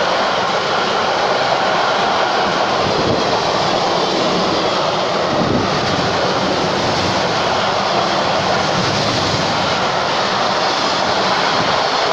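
Freight train of double-deck car-carrier wagons passing close by at speed. Its steel wheels make a steady, loud rolling noise on the rails.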